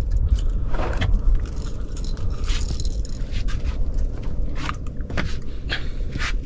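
Irregular taps, scrapes and small metallic clinks as a freshly landed queenfish flaps on a small boat's deck and is handled and unhooked, over a steady low rumble.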